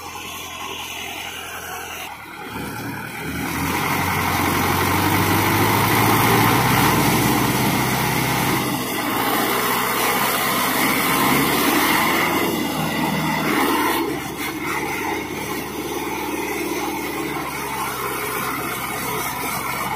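HMT diesel tractor engine running under load as it pulls a trailer heavily loaded with sugarcane, growing louder as it draws near and dropping in level about two-thirds of the way through.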